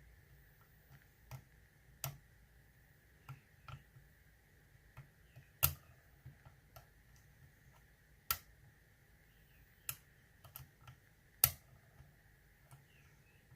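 Small metallic clicks of a hook pick and tension wrench working the pins of an ASSA oval euro cylinder lock, coming at irregular intervals, with two louder clicks near the middle and toward the end.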